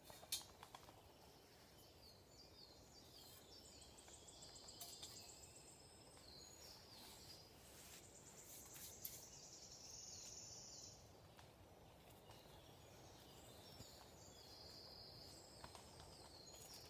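Faint woodland birdsong: repeated high chirping phrases and trills over a low outdoor hush, with a few soft clicks, the sharpest just after the start.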